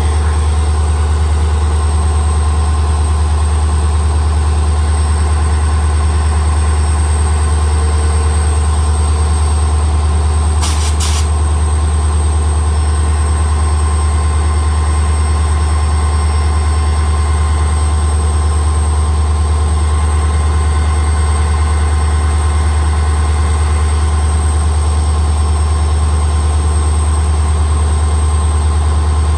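EMD 16-cylinder 710G3B diesel engine of a WDP-4 (GT46PAC) locomotive running steadily at idle: a deep, even hum with a thin high whine over it. Two brief high ticks come about eleven seconds in.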